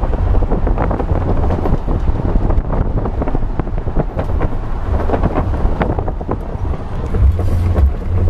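Wind buffeting a camera microphone held out of a moving car's side window, a loud, gusty low rumble over the car's road noise.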